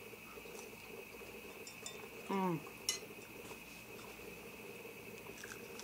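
Quiet eating at a table: small clicks and mouth noises over a steady background hum. About two seconds in there is one short hum of voice falling in pitch, followed by a sharp click.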